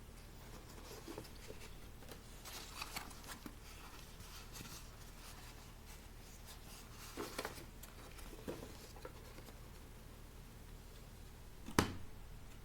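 Faint handling noises: light taps and rustles over a steady low hum, with one sharp click near the end.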